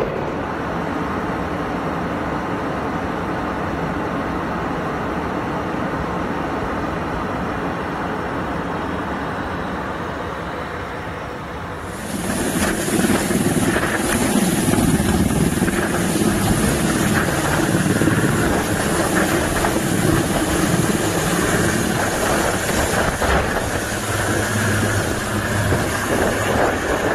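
Steady airliner cabin noise as heard from a window seat. About twelve seconds in it gives way to louder, hissier helicopter rotor and engine noise close by.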